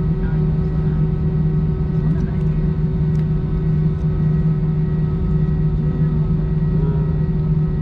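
Steady drone inside an Airbus A320-232 cabin with its IAE V2500 engines at idle: a low hum with several fixed whining tones above it that do not change in pitch or level. Faint passenger voices murmur underneath.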